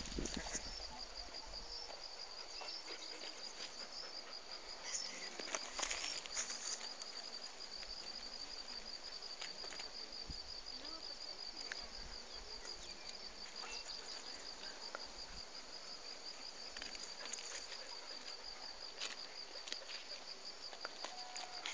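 An insect, such as a cricket, trilling steadily with a high, fast-pulsed note, with a few brief rustles of leaves being handled.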